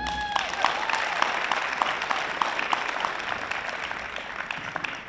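Audience applauding at the end of a figure skating program, with a short high cheer right at the start. The clapping is made of many separate claps and thins out toward the end.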